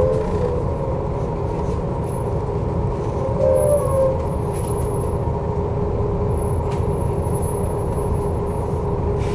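Volvo B7TL double-decker bus heard from on board while under way: steady engine and drivetrain rumble with a steady whining tone over it, and a short wavering tone a few seconds in.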